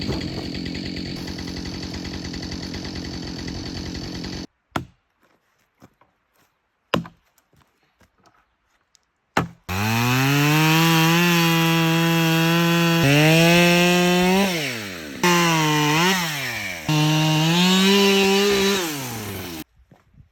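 Two-stroke chainsaw running at high revs as it cuts a dead western larch log into rounds, its pitch dipping and recovering a few times under load before it cuts off. Before it, about four seconds of steady rushing noise, then a few scattered knocks.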